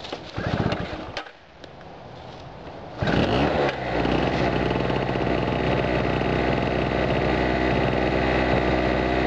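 Chicago Electric two-stroke portable generator being pull-started: the recoil starter is pulled about half a second in, and about three seconds in the engine catches, revs up and settles into a steady run.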